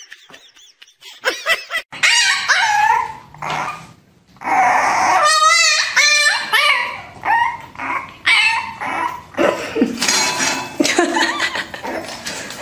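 Puppies whining and yipping: a run of high, wavering cries and short yips, with a quick fluttering whine about halfway through.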